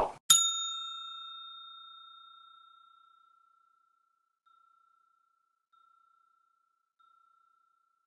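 A bell-ding sound effect: one bright strike that rings and fades away over about three seconds, followed by three faint, shorter rings of the same pitch.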